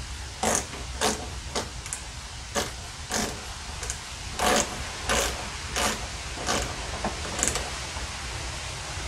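Small metallic clicks and ticks, irregular at about one or two a second, as the half-inch bowl nut is threaded and tightened onto the carburetor float bowl of a Briggs & Stratton mower engine; the clicks thin out toward the end.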